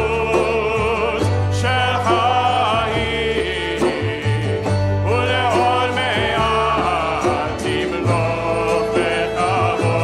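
Hebrew liturgical song: a male lead voice and a group of voices singing together over strummed acoustic guitar and sustained upright bass notes.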